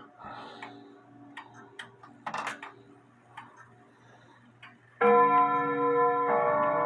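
Grandfather clock with a bim-bam strike: faint clicks and ticks from the movement, then about five seconds in the strike sets off, with ringing bell-like tones. A new strike comes about every second and a quarter over the ringing of the last.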